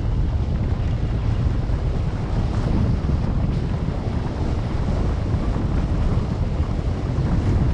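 Wind buffeting the microphone of a camera on a moving bicycle: a steady low rumble.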